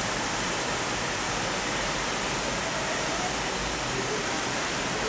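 Heavy rain falling during a storm, a steady hiss.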